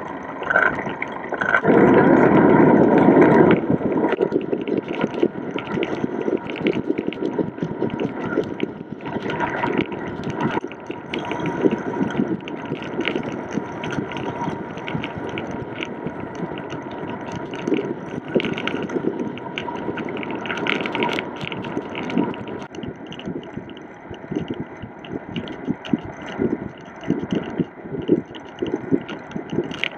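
Wind noise rumbling on the microphone of a handlebar-mounted camera on a moving bicycle, with tyre noise and frequent knocks and clatter from the bike over the surface. A stronger gust of wind rumble comes about two seconds in.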